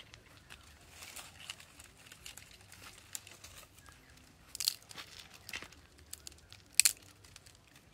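Dry leaves crackling and crunching: a small pile of dry leaves smouldering and catching fire, and leaf litter trodden underfoot in sandals. Scattered light crackles, with two louder crunches, one a little past halfway and one near the end.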